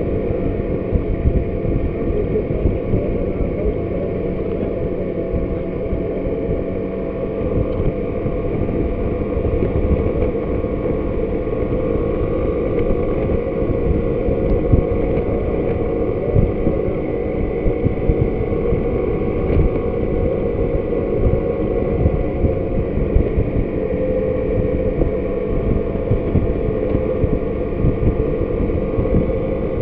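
Suzuki Burgman motor scooter cruising at a steady speed: a steady engine and drive hum under wind rushing over the handlebar-mounted camera's microphone.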